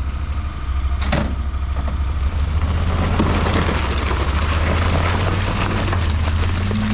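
Honda Pioneer 1000 side-by-side's parallel-twin engine running steadily, with a single metal clank about a second in as an aluminium loading ramp is set on the trailer. From about two and a half seconds the engine works harder and the tracks churn as the machine backs down the ramps onto the snow.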